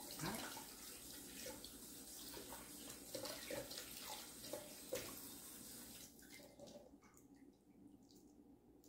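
Water running from a kitchen tap into the sink, with a few light knocks of things being handled; the flow stops about six seconds in.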